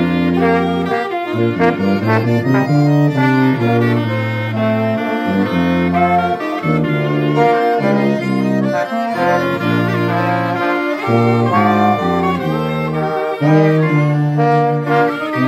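Brass and woodwind ensemble, with saxophones and trombones, playing a hymn in held chords over a low bass line.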